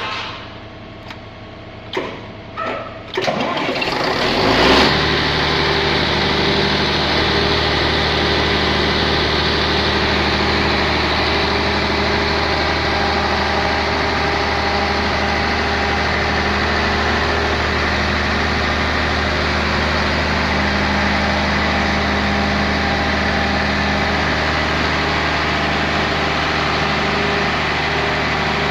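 After a few brief knocks, the Volvo Penta diesel engine of a 300 kVA generator set is started about three seconds in: it catches with a quick rise in speed, then runs loud and steady at constant speed.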